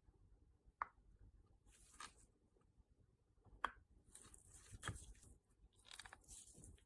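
Faint handling of a squishy stress toy: a few sharp soft clicks and short crinkling, squishing noises at irregular intervals.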